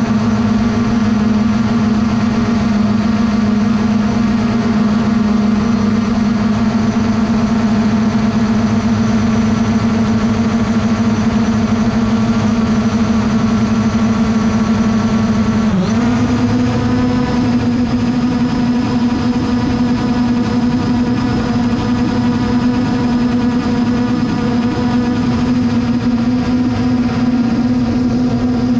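Drone motors and propellers humming steadily in flight. The pitch dips briefly a little past halfway, then settles slightly higher as the throttle changes.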